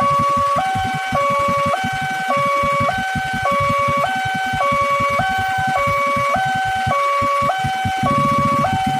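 Railway level crossing's electronic warning alarm sounding, a loud two-tone signal that alternates between a lower and a higher pitch, a full cycle just over a second. It is the crossing's warning that a train is approaching, with the barrier down.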